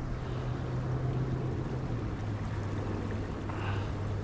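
Flowing river water making a steady rushing noise, with a steady low hum underneath that dips slightly in pitch about halfway through.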